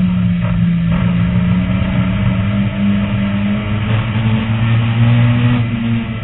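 Race car engine heard from inside the cockpit, running hard at a fairly steady pitch, with a short rise in revs about five seconds in.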